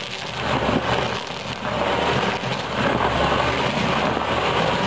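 Tractor engine running under load to drive a PTO-powered stump grinder, whose cutter is chewing into a tree stump: a steady machine drone with a dense grinding noise and scattered cracks of wood breaking.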